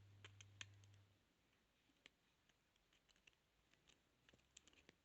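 Faint, irregular little clicks and ticks of a lock pick and tension tool working the pins inside a 32mm padlock during single-pin picking.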